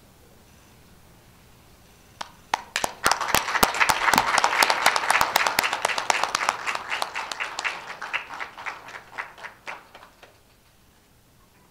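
Audience applauding. A few scattered claps start about two seconds in, build quickly into full applause, then thin out and stop near the end.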